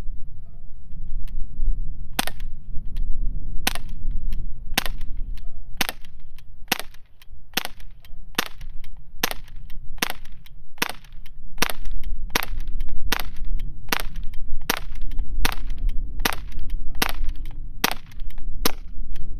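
A CO2 air pistol firing a long string of about two dozen sharp shots at a steel target, roughly one to two a second, beginning about two seconds in.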